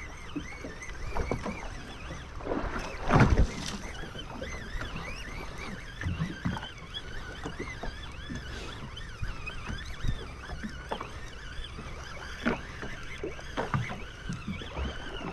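Water slapping against the hull of a drifting boat, with the whirr and clicking of a conventional jigging reel being cranked as the jig is worked. A heavier knock comes about three seconds in, with several lighter knocks scattered after it.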